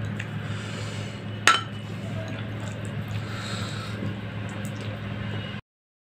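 A ceramic bowl set down on the table with a single sharp clink about a second and a half in, then soft wet squishing of rice and vegetable curry being mixed by hand, over a steady low hum. The sound cuts out completely just before the end.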